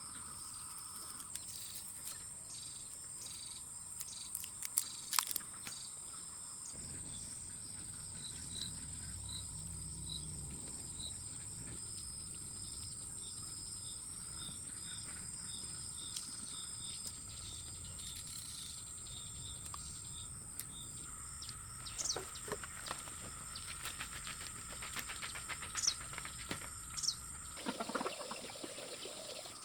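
Outdoor ambience: a steady high insect drone, with a series of short, evenly spaced bird chirps through the middle and scattered sharp clicks and knocks near the start and in the last few seconds.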